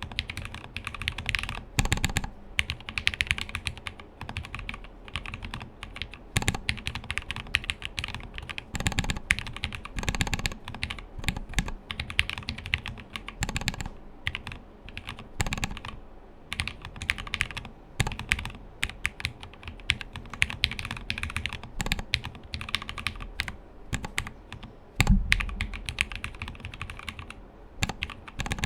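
Continuous fast typing on a custom mechanical keyboard: lubed Cherry-topped JWK linear switches, plateless and burger-mounted in a CNC aluminum case, under GeekArk keycaps. Dense, irregular keystrokes with one heavier, deeper thud near the end.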